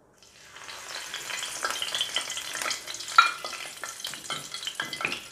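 Fresh curry leaves crackling and sizzling as they fry in hot oil in an aluminium kadai, with the burner switched off, while a spoon stirs them. There is one sharp click about three seconds in, and the crackling eases toward the end.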